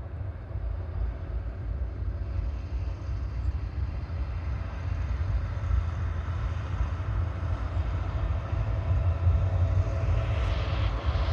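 Freight train running over a steel girder bridge: a steady rumble of locomotive and wagons that builds a little toward the end.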